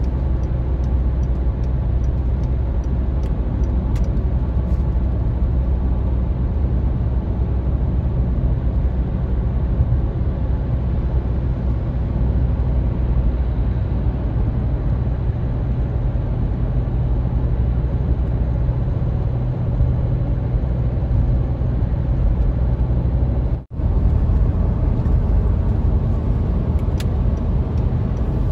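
Steady road noise inside a car cruising on a motorway: a continuous low rumble of tyres and engine. The sound drops out briefly about three-quarters of the way through, then resumes as before.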